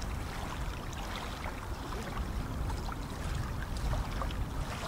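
Small waves lapping and splashing at a lake shore, with scattered small splashes over a steady low rumble of wind.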